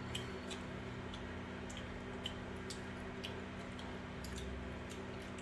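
Quiet eating with the hands: faint, scattered clicks and soft squishes as fingers mix rice and curry on metal plates, over a steady low hum.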